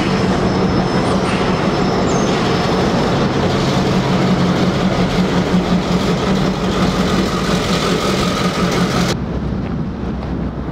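Passenger train rolling past close by, with the EMD F9 diesel locomotive's engine running and a steady low hum over the rumble of the wheels. The sound cuts off suddenly about nine seconds in, giving way to quieter outdoor noise.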